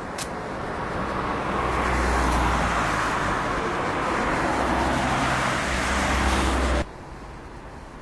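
A car driving past on the road: tyre and engine noise swelling as it draws near, then holding steady before cutting off suddenly about seven seconds in.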